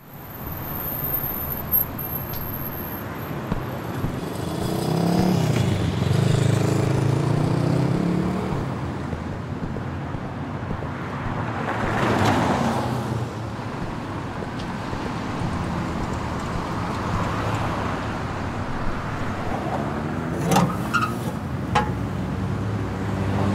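Urban street traffic: cars driving past, one louder pass about halfway through and engines changing pitch as they go by. Near the end come a couple of sharp metal clanks from a street mailbox's pull-down chute being opened.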